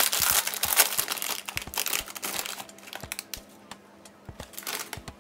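Plastic snack bag of baked crackers crinkling as it is handled. The crinkling is dense at first, then thins to a few fainter crackles about halfway through.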